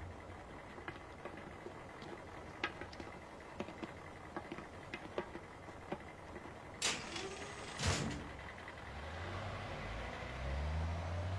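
Cartoon sound effects: scattered light footsteps, then two heavy door slams about a second apart some seven seconds in, then a vehicle engine rumbling as it starts to pull away near the end.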